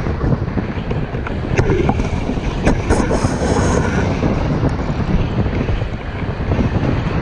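Strong wind buffeting the microphone in a steady, heavy rumble, with a few sharp crackles in the middle.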